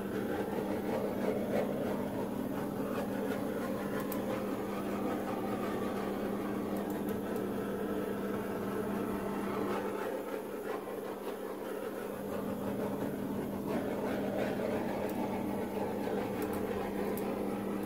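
Handheld heat tool blowing steadily over wet poured acrylic paint, a steady hum with an airy rush that eases off briefly about ten seconds in and then picks up again.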